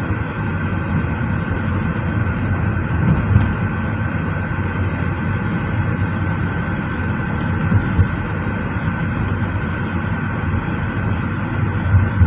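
Road and engine noise inside a moving car's cabin: a steady rumble with a faint steady whine, and a few soft low thumps.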